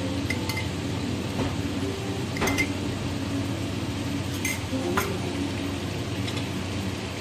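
Marinated chicken pieces sizzling steadily in hot oil in a frying pan, with a few light clinks every second or two.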